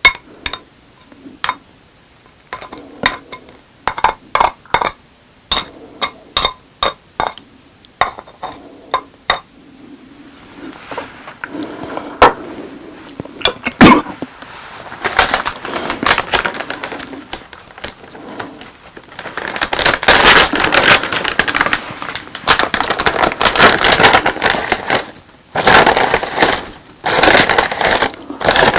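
Spoon and dish clinking in a run of sharp taps for the first several seconds, then close-miked eating: chewing and crunching of boneless spicy chicken and rice that grows loud and near-continuous about two-thirds of the way through, with a brief break.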